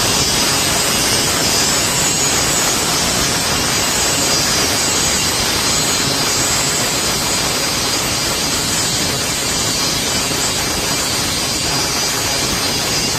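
Grinder grinding weld beads down flush on the welded seam of a steel lawn roller drum, running steadily with a high, hissing grind.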